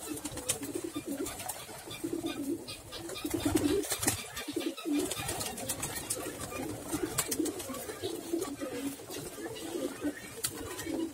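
A flock of domestic pigeons cooing, many low coos overlapping without a break, with scattered sharp clicks.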